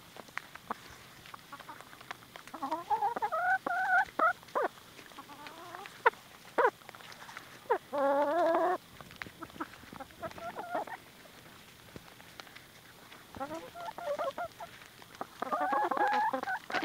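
Barred Plymouth Rock hens clucking and giving several longer, drawn-out calls in turn. Between the calls come short sharp taps of beaks pecking at a muffin held in a hand.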